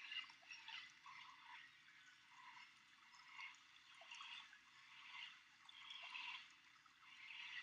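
Faint outdoor ambience of distant birds chirping in short, irregular calls.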